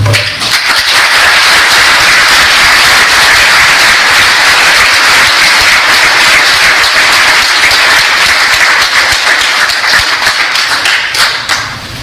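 A large crowd applauding, steady and loud, tapering off near the end.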